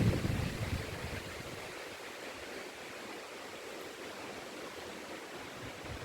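Steady rush of wind through forest trees. Low wind buffeting on the microphone dies away over the first second or two.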